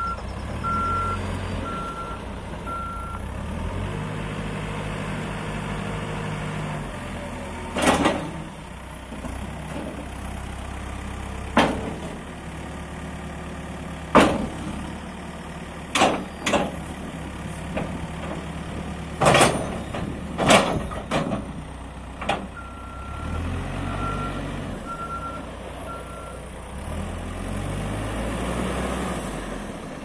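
CAT 432F2 backhoe loader's diesel engine running as the machine drives and works its loader arm. A reversing alarm beeps four times near the start and four times again about two-thirds through. A string of sharp knocks comes in the middle, the loudest close together past the midpoint.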